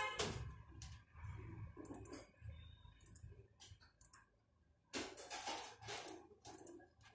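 Computer mouse button clicking: several separate sharp clicks at irregular spacing, with a quick run of clicks about five seconds in, over a faint low hum.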